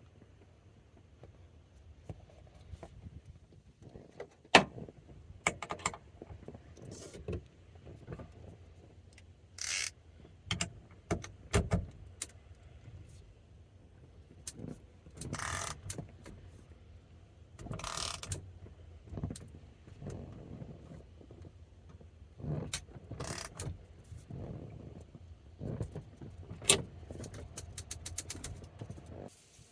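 Irregular metallic clicks, knocks and short scrapes of hand tools and parts being handled during reassembly of a pickup's steering column, over a low steady hum.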